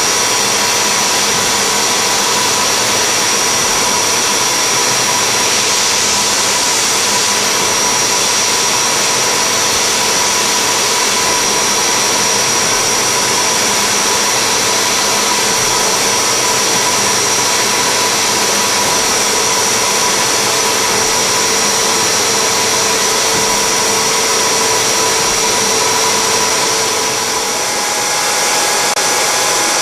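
Steady hiss of a −10 degree cold-air blast mixed with the steady whine of a CNC spindle at 6000 rpm, as an indexable carbide-insert engraving tool cuts acrylic 0.6 mm deep. The sound dips briefly near the end.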